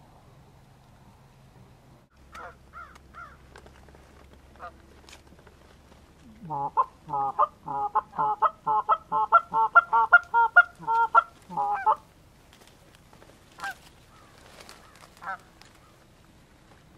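Canada goose honks and clucks: a few single calls, then a fast, loud run of short honks about five a second for some five seconds, then two more single honks near the end.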